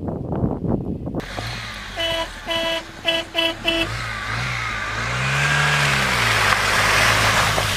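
A car horn honks about six short times in quick succession. Then an engine revs up and back down, and a rising rush of water grows as the car drives into a flooded track.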